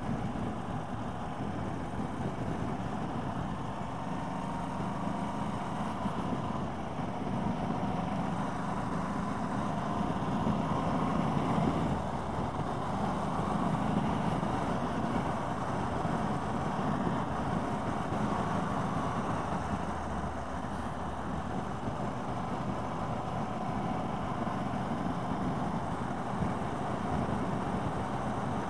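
Motorcycle engine running steadily while riding, mixed with wind and road noise, swelling slightly about a third of the way in.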